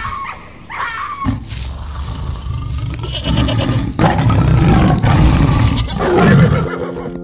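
Tiger growling and roaring: a long, rough, low rumble that starts about a second in, builds, and is loudest shortly before it stops near the end.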